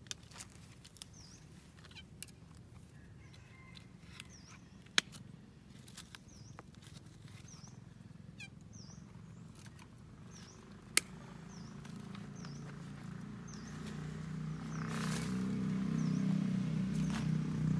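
Pruning shears snapping shut as roots and shoots are cut: a few sharp clicks spread out, the loudest about 11 seconds in. A bird repeats a short chirp about once a second, and a low drone grows steadily louder over the last few seconds.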